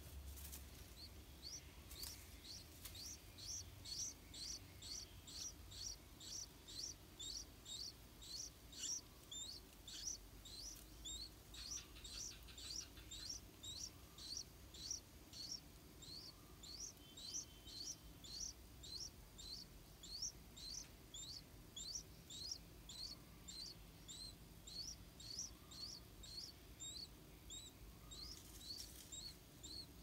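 Yellow-vented bulbul nestlings begging at the nest: a long run of short, thin, high rising chirps, about two or three a second, faint and steady.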